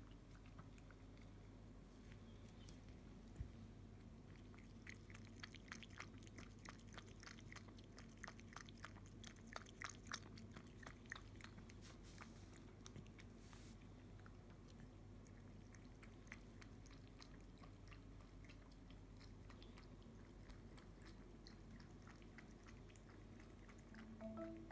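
Somali kitten lapping milk: a run of faint, quick clicks, a few a second, that thins out about halfway through, over a low steady hum.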